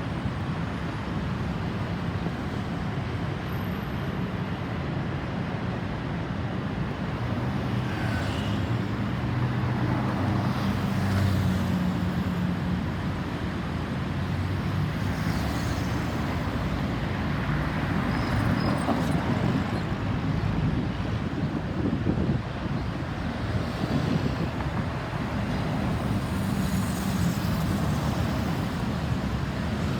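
Road traffic: a steady stream of motor vehicles with engine hum and tyre noise, several passing close by in swells. No siren is heard.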